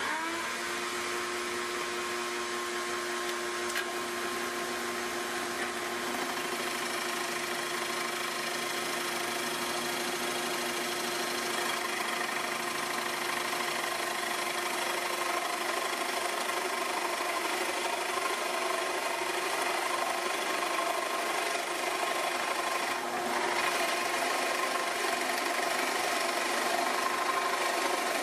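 Drill press switched on and running steadily while a Forstner bit bores a depth-stopped hole into a 2x12 board.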